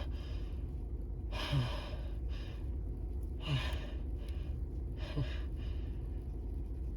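A person's pre-sneeze build-up: three short gasping inhales about two seconds apart, with softer breaths between them, as a sneeze comes on.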